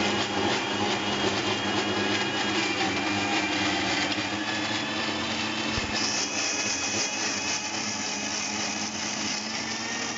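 Electric mixer grinder running steadily, its stainless-steel jar blending banana slices and sugar. The whine turns brighter and hissier about six seconds in.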